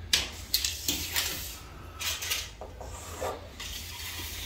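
Several short scratchy scraping strokes of marking-out tools against a plasterboard ceiling, sharpest in the first second.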